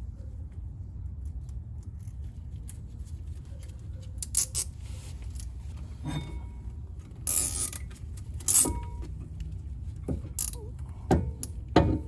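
Scattered metallic clicks and knocks, with one longer scrape near the middle, as a removed brake caliper is handled and hung from the car's upper control arm, over a low steady hum.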